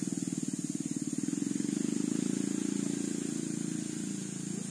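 A small engine running with a fast, even pulse, fading out over the last second or two.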